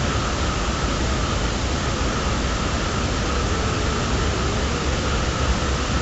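Steady rain, an even hiss, with crickets trilling faintly and steadily underneath.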